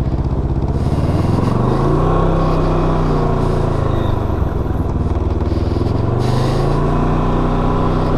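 Can-Am Ryker 600's Rotax twin-cylinder engine running under way, its pitch rising about a second in, dropping off around three to four seconds in, then rising again and holding steady.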